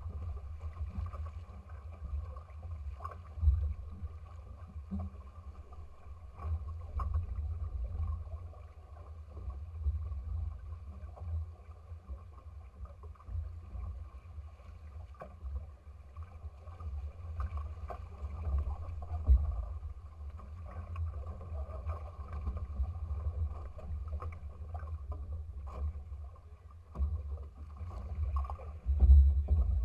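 Water rushing and splashing along the hulls of a small sailing trimaran under way, over a low rumble. A few louder surges and splashes stand out, the loudest near the end.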